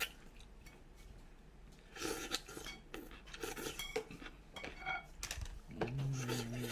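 Utensils clinking and tapping against dishes during a meal: scattered light clicks with a few short ringing chinks.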